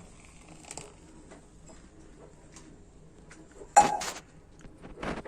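Kitchen cookware clattering: a loud metal-and-dish clank a little under four seconds in, a smaller knock near the end, and faint small clinks before.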